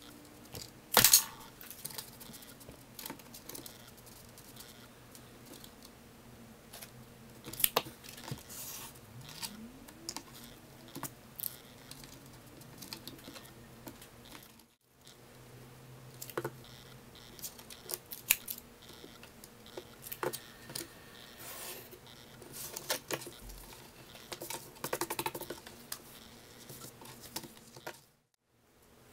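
Hands handling a wooden board, a tape measure and leather: scattered clicks, taps and scrapes over a faint steady hum, with one sharp knock about a second in. The sound cuts out briefly twice, near the middle and near the end.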